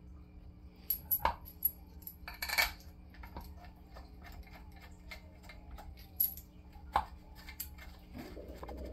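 Light metal clicks and clinks from 4L60E transmission pump parts being handled and fitted together by hand: scattered taps, a quick flurry about two and a half seconds in, and a few sharper knocks, one about a second in and one about seven seconds in.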